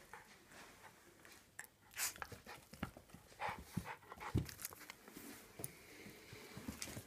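Small terrier panting as it plays with a plush toy, with irregular rustles and a few short knocks, the loudest about two seconds in and again past four seconds.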